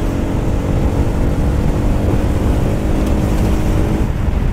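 Bajaj Pulsar NS200 single-cylinder engine running at a steady speed under way, over heavy wind rumble on the microphone; the engine note drops away about four seconds in.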